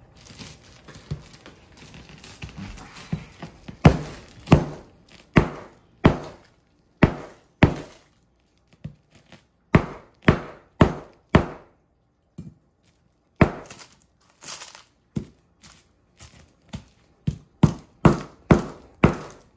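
A hard sugar loaf pounded with the butt of a large kitchen knife's handle on a countertop: a series of sharp knocking blows at irregular intervals. Softer knocks come first, then loud blows from about four seconds in, quickening to about two a second near the end.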